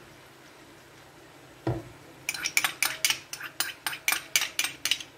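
A dull knock, then a quick run of about a dozen sharp clinks, roughly four a second: a metal spoon knocking against a small ceramic bowl to scrape tomato sauce out into the pot.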